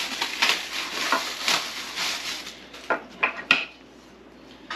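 Plastic packaging crinkling and rustling as it is pulled off a small chicken-plucker part by hand, followed by three sharp clinks about three seconds in.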